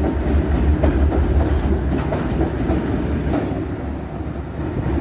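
Two-section diesel locomotive running light, without wagons, passing close by: a deep, steady engine rumble with wheels clicking now and then over the rails.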